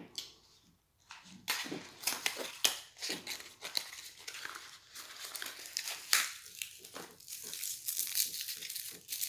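Crinkling and tearing of chocolate packaging: a small cardboard box of Lindor truffles being torn open, then the twist wrapper of a truffle being untwisted. Dense irregular crackling that starts after about a second and a half of quiet.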